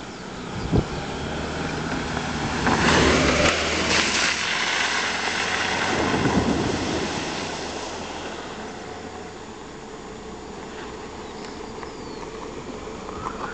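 Small 4x4's engine running as it drives through a shallow stream, water splashing off the tyres in two loud rushes a few seconds in, then the engine fading as the vehicle moves away.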